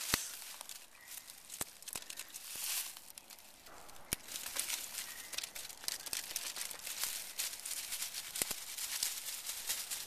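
Dry dead leaves and twigs rustling and crackling as they are gathered by hand from the forest floor for kindling, with a few sharp cracks.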